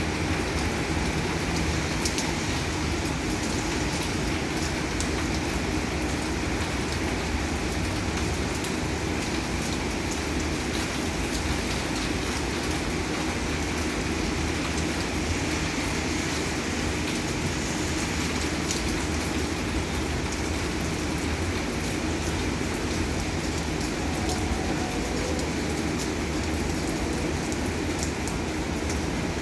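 Heavy downpour: dense rain falling steadily on a roof, with water running off the eaves.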